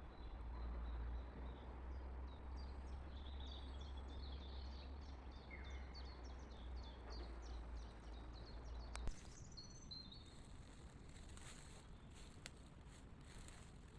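Small songbird singing outdoors: a long, rapid series of high chirps, with a few more calls later on. Under the first part runs a low steady rumble that cuts off with a sharp click about nine seconds in.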